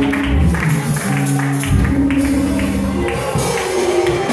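Live church band music: held chords and a moving lower line under a running tambourine and drum strikes.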